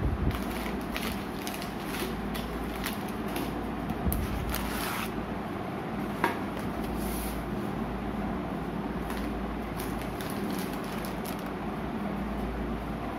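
Plastic-wrapped snack bars being handled and taken out of a cardboard box: wrappers crinkling and rustling, with light knocks as bars are set down. The handling is busiest in the first five seconds, with a sharp click about six seconds in, over a steady low hum.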